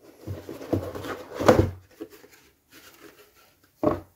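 Cardboard model kit box being opened by hand: the lid rubs and scrapes as it is slid off, with a knock about a second and a half in and another short knock near the end as the box and lid are set down on the table.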